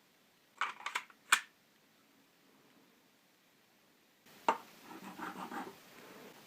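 Small parts being handled on a workbench: a quick run of three or four sharp clicks, then a click about four seconds in followed by rustling, scraping handling noise.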